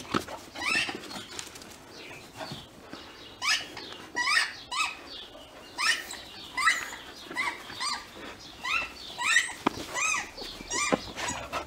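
Cocker spaniel puppies at play, giving short high-pitched yelps over and over at an uneven pace.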